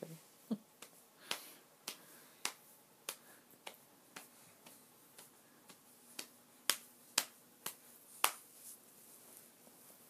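A run of sharp, crisp clicks, about two a second, uneven in loudness, stopping shortly before the end. A brief baby's sound comes just after the start.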